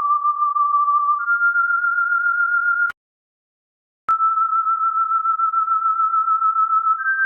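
Electronic pure tone held at steady pitches just above 1 kHz, stepping up in pitch about a second in. It cuts off with a click about three seconds in, then returns with a click a second later at a slightly lower pitch and holds.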